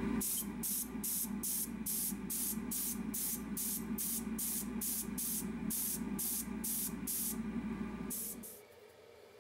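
Paint being sprayed in rapid short bursts, about two or three hissing puffs a second, over a steady low hum; it stops near the end.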